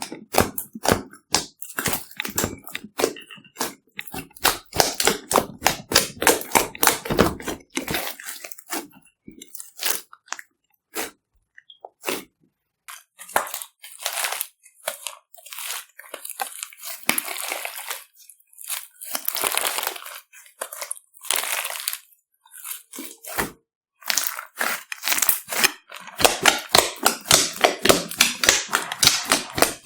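Glossy slime being kneaded and mixed by hand: rapid runs of crackling, popping clicks as trapped air bursts. The clicking thins out for a few seconds about a third of the way in, then comes back dense near the end.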